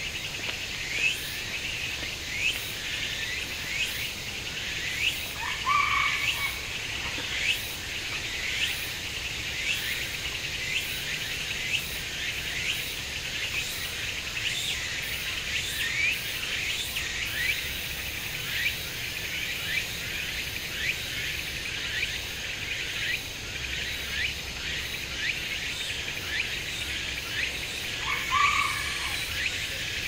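Outdoor ambience of small birds chirping rapidly over a steady insect chorus. A short, lower call cuts in about five seconds in and again near the end.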